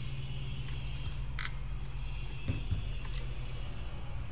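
Steady low electrical hum from the repair bench, with a few faint clicks and taps as the microscope and its monitor are handled.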